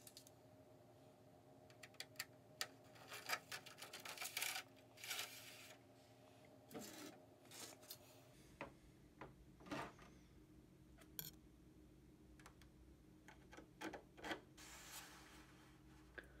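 Scattered light clicks, taps and brief rubbing of hard 3D-printed PLA plastic parts and a thin push rod being handled and fitted together, over a faint steady hum.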